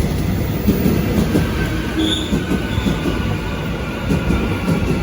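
Subway train on the rails: a loud steady rumble of steel wheels and carriages, with a faint high squeal of the wheels through the middle.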